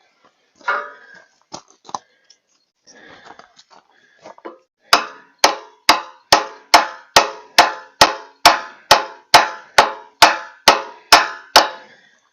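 Hammer striking steel hydraulic-cylinder parts: a few loose clanks of handling, then a steady run of about sixteen sharp, ringing metallic blows, a little over two a second, that stops near the end.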